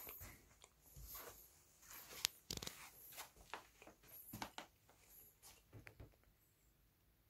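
Faint handling noises: scattered soft rustles, taps and clicks, with one sharper click a little over two seconds in, dying away near the end.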